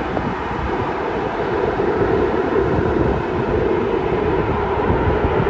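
Jet airliner engines running steadily, with gusty wind rumbling on the microphone.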